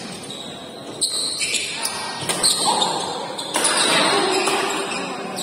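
Badminton doubles rally: sharp racket hits on the shuttlecock about a second apart, with short shoe squeaks on the court floor between them.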